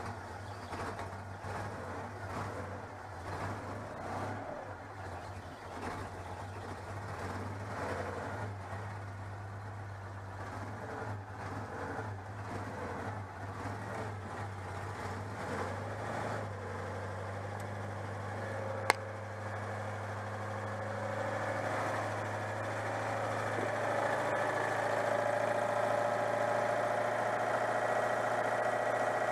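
Citroën 2CV 602 cc air-cooled flat-twin engine running on full choke in its first test run after reassembly. It runs a little unevenly at first, then steadier and slightly louder from about two-thirds through, with one sharp click just past the middle.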